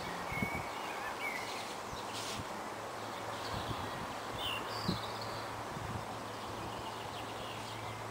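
Small birds chirping now and then over a steady outdoor background hiss, with a faint low hum underneath.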